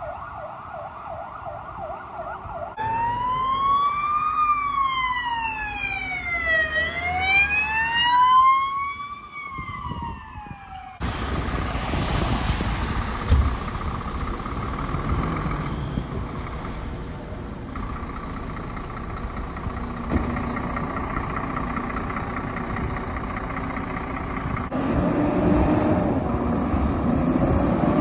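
Emergency vehicle sirens: a fast warbling yelp, then a slow wail rising and falling. Then steady engine and road noise on a wet street, growing louder near the end as a fire engine pulls out.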